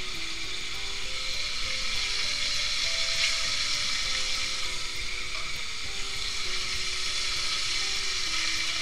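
Rabbit pieces searing in hot bacon grease in a Dutch oven, a steady sizzle as the meat browns.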